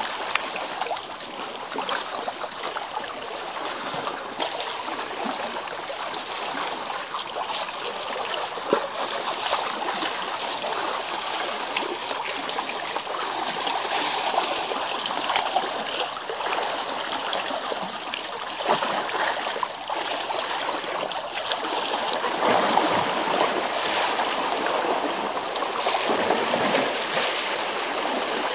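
Sea water sloshing and lapping among shore rocks close to the microphone: a steady wash with small irregular splashes.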